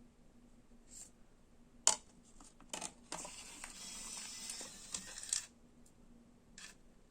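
Several sharp clicks, with a rushing hiss lasting about two seconds in the middle, while the music is stopped.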